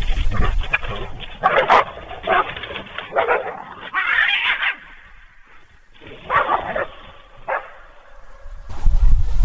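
A dog barking: four barks close together, a pause of about a second and a half, then two more.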